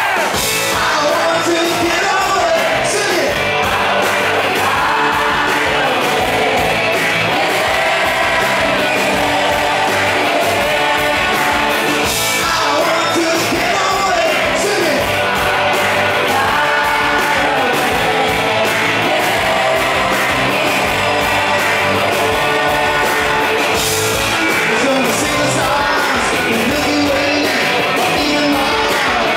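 Live rock band: a male lead singer over electric guitar and drums, with a few loud cymbal crashes, heard from the audience.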